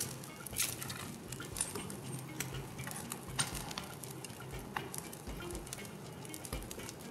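Dry brush bonfire burning, with irregular sharp crackles and pops from the burning twigs.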